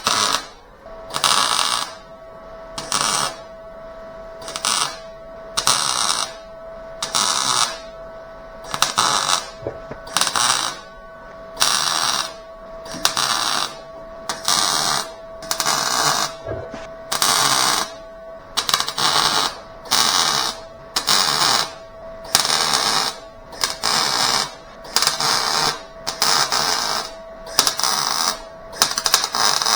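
Welder laying a long run of short tack welds on a car's sheet-metal taillight panel: crackling bursts of about half a second each, roughly one a second, over a faint steady hum.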